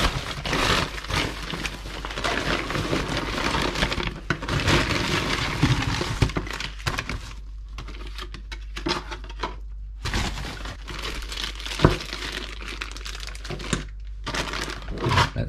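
Packaging being unwrapped by hand: dense crinkling and rustling for the first half, then quieter scattered clicks and light knocks as the mount parts are taken out, with one sharper knock about twelve seconds in.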